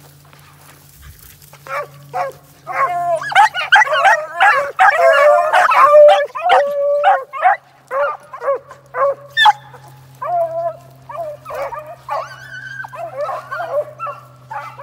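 A pack of beagles baying, several dogs' voices overlapping, as hounds giving tongue while running a rabbit's track. The baying starts about two seconds in, is loudest a few seconds later, then thins to scattered calls.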